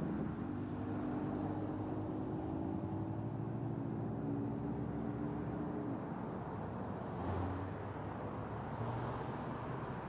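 Steady road noise of a car driving, with a humming tone of several pitches for the first six seconds or so that then fades out.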